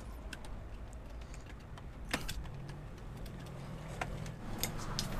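Scattered light clicks and rattles of wires and terminal hardware being handled as the switch wiring is disconnected from a star-delta starter panel, the clearest click about two seconds in, over a low steady hum.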